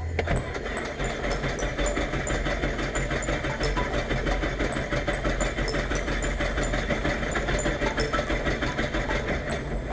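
Robin HR200 light aircraft's four-cylinder Lycoming piston engine running steadily at low power as the aircraft taxis, heard from inside the cockpit with a fast, even flutter.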